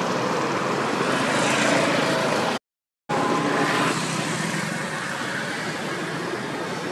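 Steady motor-vehicle engine noise with a broad hiss over it, broken by a half-second cut to silence about two and a half seconds in.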